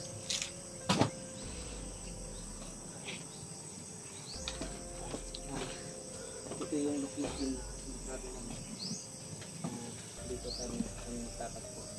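Steady high-pitched drone of insects, with two sharp knocks about a second in and a few short rising chirps now and then.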